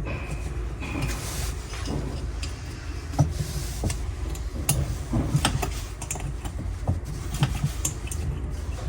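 Irregular clicks and knocks of tools and metal parts being handled while a diesel heater is taken apart, over a steady low rumble, with two brief high squeaks in the first second or so.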